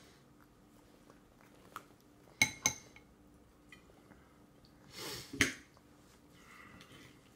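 A plastic spoon strikes a stainless steel bowl twice in quick succession, and the bowl rings briefly each time. A few seconds later the spoon scrapes in the bowl and knocks it once more.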